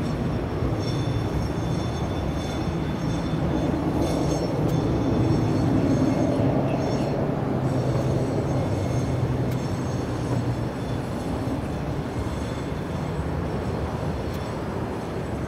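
Ilyushin Il-76TD-90VD's four PS-90A-76 turbofan engines running during the landing rollout: a steady rumble with a high whine, loudest about five or six seconds in, then easing.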